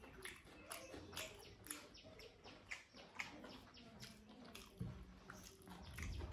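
Wet chewing and lip smacks from a mouth full of rice and dal, in a quick irregular run of sharp little clicks.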